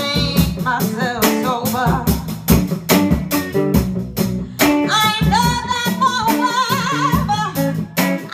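A woman singing into a handheld microphone over a strummed guitar. From about halfway through she holds long notes with vibrato.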